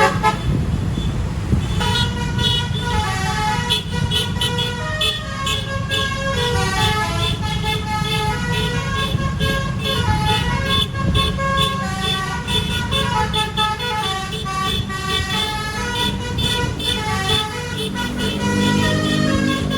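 A bus's Basuri-type telolet horn, a multi-trumpet musical horn, playing a melody in held, stepped notes over a steady low rumble.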